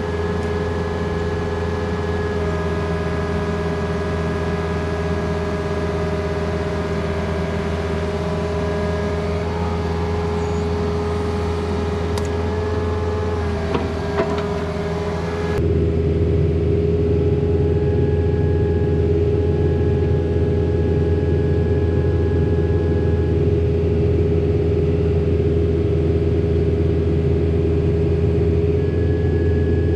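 Compact excavator's diesel engine running at steady throttle, with a steady whine over the low engine hum as the boom and thumb are worked slowly. It gets louder about halfway through.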